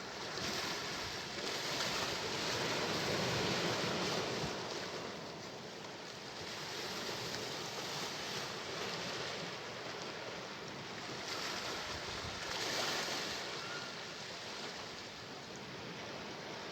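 Sea waves breaking and washing ashore, the surf swelling and easing in slow surges, three of them here.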